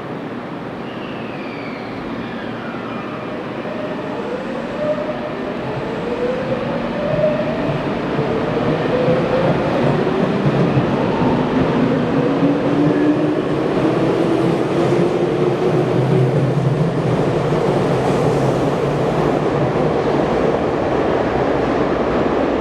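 Tokyu electric commuter train accelerating, its traction motors whining in rising steps over the rumble of wheels on rail, growing louder and then holding steady.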